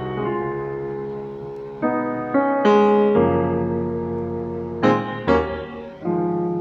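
Roland E-09 arranger keyboard playing a short, simple passage on its first piano tone. Chords are struck about two, two and a half, three, five and six seconds in, and each rings on and fades.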